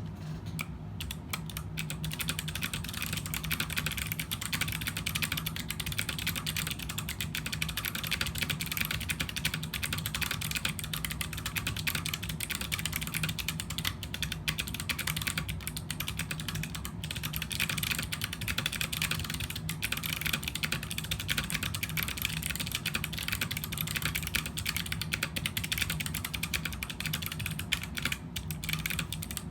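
Fast continuous typing on a mechanical keyboard with Kailh Box White clicky switches, an aluminium plate and ABS keycaps: a dense stream of sharp clicks from the switches' click bars.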